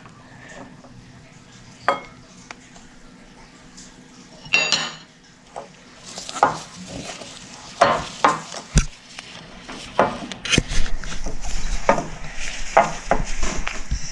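Spoon stirring a thick mixture of melted gummy bears and cornstarch in a bowl, knocking and clinking against the bowl. Only a few separate clinks at first, then steady stirring and scraping from about six seconds in.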